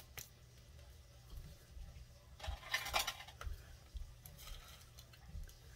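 Scissors and a cardboard eyeshadow palette being handled, with a short burst of clicking and rustling about two and a half to three and a half seconds in, as the scissors are taken up to cut the palette's seal.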